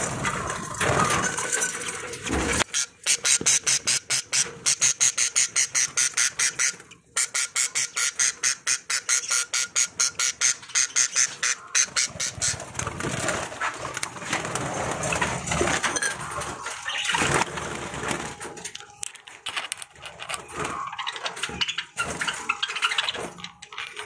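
Budgerigars chattering and squawking, with a fast, regular run of pulsed calls for several seconds that breaks off briefly partway.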